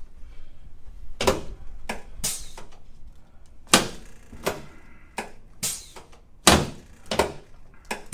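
A chiropractic treatment table thunking and knocking during spinal adjustments on a patient lying face down: about ten sharp knocks at uneven intervals, two of them louder than the rest, with faint rustling between.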